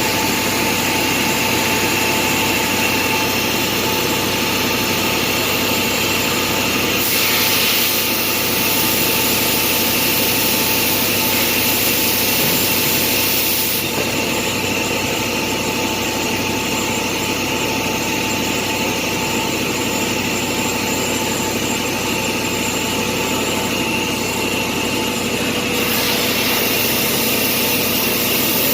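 CNC router spindle running with a steady whine as it routes a lock or hinge hole in a wooden flush door; the high cutting hiss grows louder about seven seconds in, drops back around fourteen seconds, and rises again near the end.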